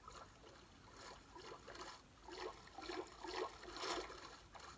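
Video game water sound effects: a run of faint, short splashes as a character swims, coming faster in the second half.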